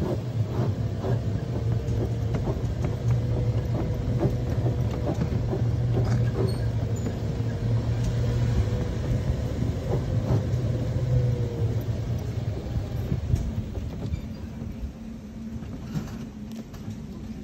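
A small vehicle riding along a road: a steady low hum with light rattles and knocks, and a fainter steady higher whine that falls away about eleven seconds in. The hum eases off near the end.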